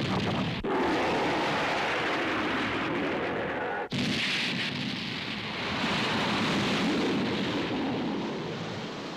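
Animated film sound effects: a loud, continuous rumble of crashing and rushing noise. It breaks off abruptly under a second in and again about four seconds in, then carries on.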